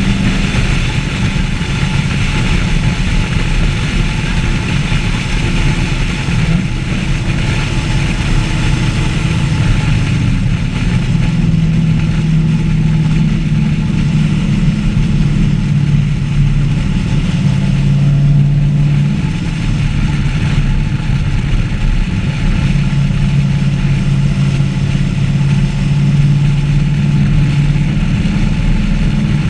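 Chevrolet Camaro 1LE's 6.2-litre V8 running at steady, moderate revs as the car drives along, its pitch stepping down a little about a third of the way in and then holding.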